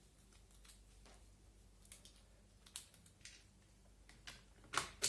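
Sparse light clicks and taps of a tool and parts against an airsoft MP5 as its fixed stock is screwed fast, with the sharpest click near the end.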